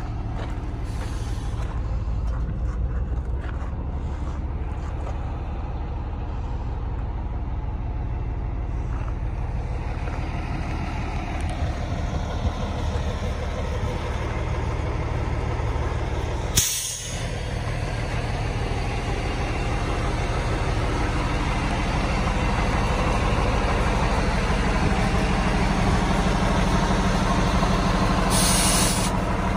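The diesel engine of a 2000 International 9200i dump truck running steadily, a little louder in the second half. A short sharp burst of air hiss from the truck's air system comes about halfway through, and another brief hiss near the end.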